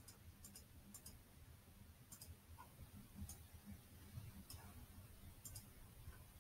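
Near silence: faint room tone with a handful of quiet, sharp computer mouse clicks scattered through it, some in quick pairs.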